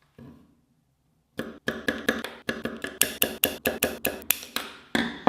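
Copper hammer tapping magnetic organ pickups into their mounting plate: a single tap, then a quick, even run of about twenty ringing taps, roughly four a second.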